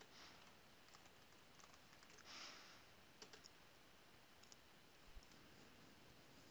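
Faint, scattered clicks of a computer keyboard and mouse as a password is typed and a button clicked, over near-silent room tone. A brief soft hiss comes about two seconds in.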